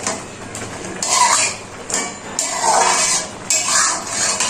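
Metal spatula scraping and stirring in a cooking pan, in repeated strokes about once a second.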